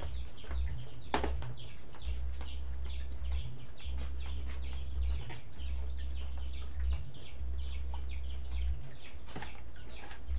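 Small birds chirping over and over, short high notes that fall in pitch, about two or three a second, over a low rumble that comes and goes.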